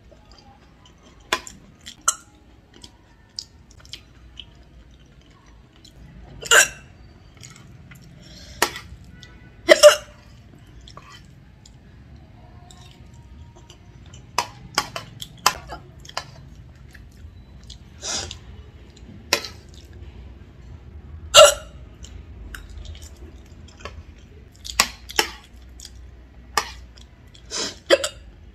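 A woman hiccuping over and over: short, sharp hics at uneven gaps of a second to a few seconds, some much louder than others.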